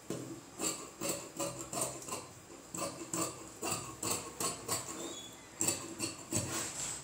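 Large tailoring scissors snipping through several layers of printed fabric, a quick run of crisp cuts about two or three a second.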